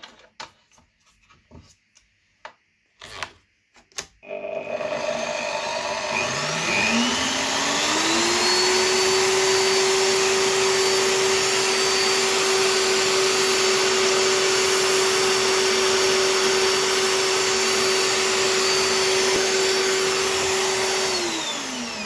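A few clicks of handling, then a bench drill press starts about four seconds in. Its motor whine rises over a few seconds to a high, steady speed. It runs steadily while a 1.5 mm bit drills a small core hole in a model-railway turnout, then winds down just before the end.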